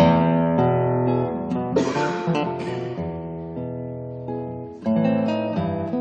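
Acoustic guitar music: plucked notes and a strummed chord about two seconds in, ringing and fading away, then fresh chords near the end.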